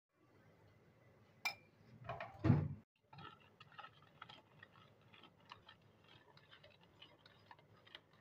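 Metal spoon stirring sugar into milk in a plastic bowl: many light, irregular clinks and scrapes. In the first three seconds a sharp clink and a short, louder knock and scrape of kitchenware.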